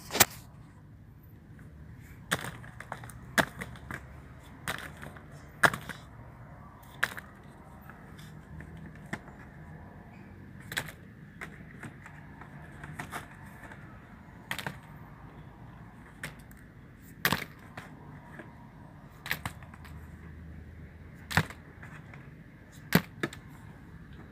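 Large citrus fruits dropped one by one into a plastic crate, each landing as a short sharp knock against the crate and the other fruit. The knocks come irregularly, about one every second or two.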